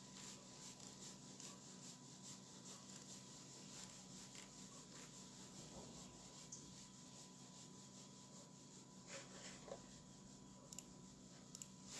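Near silence: faint rubbing and scattered small clicks over a steady low hum and a thin, steady high tone.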